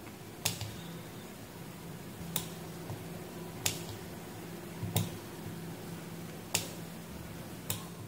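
Tactile micro switches clicking as they are pressed, with the relay they drive snapping on and off to switch a light bulb: six sharp clicks at uneven intervals, over a faint steady hum.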